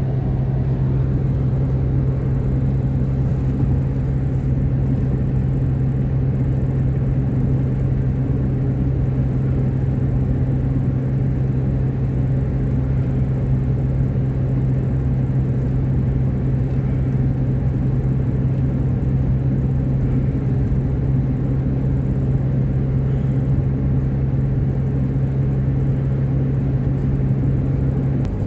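Steady car cabin noise while cruising at highway speed: an even engine drone with tyre and road rumble underneath.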